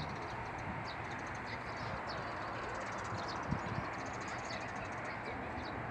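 Steady outdoor wind noise, with faint high chirps scattered through it and a soft knock about three and a half seconds in.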